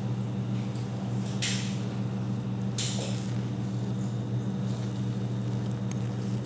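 Steady low hum of room tone, with two brief scrapes of forks on plates, about a second and a half and three seconds in.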